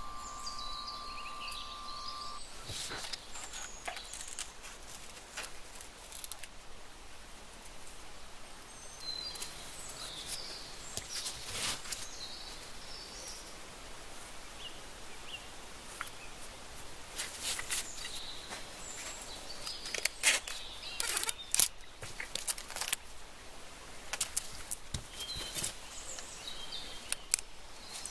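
Scattered light clicks and taps of small cut glass pieces being handled and set down on a work surface, the loudest cluster about two-thirds of the way in, with faint high chirping sounds in between.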